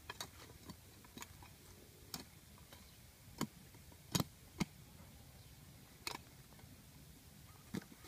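Machete blade chopping at the ground and the base of a wooden stick: a series of sharp, irregular knocks, the loudest two close together about four seconds in.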